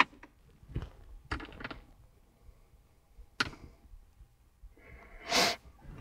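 A few scattered clicks and knocks of hard objects being handled, with a short hissing rush about five seconds in.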